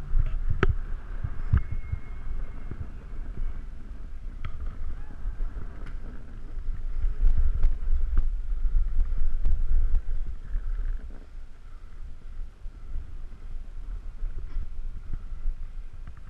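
Wind buffeting the microphone of a body-worn camera while riding downhill, with the swish and scrape of a board sliding over packed snow. A few sharp clicks in the first couple of seconds.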